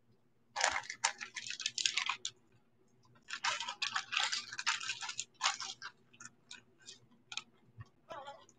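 Costume jewelry being handled: small metal pieces clinking and rattling in two busy spells of a second or two each, followed by a few scattered clicks.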